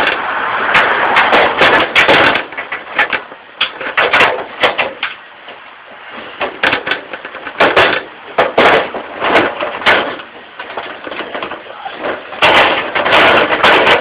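Wire live-trap cage rattling and clanking in a string of sharp metallic knocks as its door is worked by hand, with rough rustling handling noise close to the microphone, heaviest near the start and near the end.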